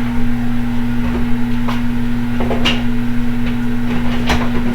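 Steady low electrical hum from a kitchen appliance, with a few light clicks and knocks of things being handled on the counter.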